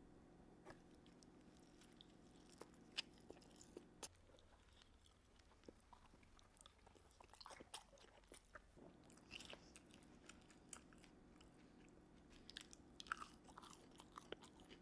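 Very faint chewing and crunching of food, with scattered soft mouth clicks over a low steady hum.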